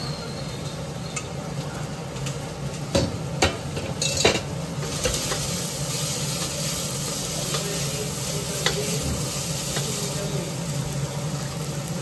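Vegetables frying in ghee, sizzling steadily while being stirred, with a few sharp knocks of a utensil against the pot about three to four seconds in. About five seconds in, the sizzle turns louder and brighter.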